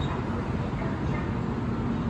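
Taiwan High Speed Rail 700T high-speed trainset humming steadily at the platform as it starts to depart, a low drone of its traction and onboard equipment.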